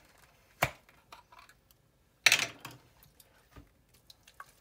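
Cookware being handled: a sharp knock, then a louder clattering knock a little over two seconds in, with scattered light clicks around them.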